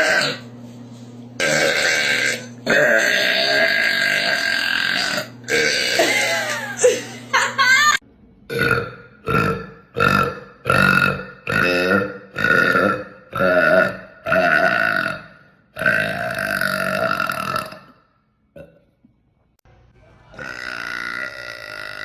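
A girl burping again and again: four long, drawn-out burps, then a quick run of about ten short burps in a row. Another long burp follows, and after a short pause a further long one begins near the end.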